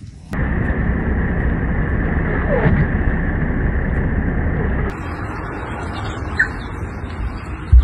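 A loud, steady rushing rumble of wind and road noise while driving through a blizzard whiteout. It cuts off at about five seconds into quieter outdoor air with a single short bird chirp.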